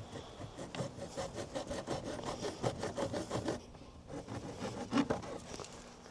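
Hacksaw cutting through the handle of a battery box with quick back-and-forth strokes. The sawing stops about three and a half seconds in, and a few more strokes follow.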